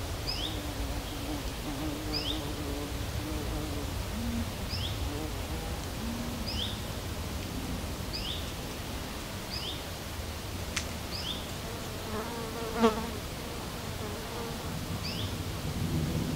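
A flying insect buzzing, its hum wavering in pitch and passing close about 13 seconds in. Over it a bird repeats a short, high two-part call every second and a half to two seconds.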